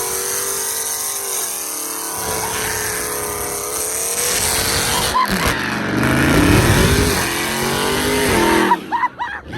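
Car engine revving hard at a car meet, its pitch climbing and falling several times over a steady hiss of noise.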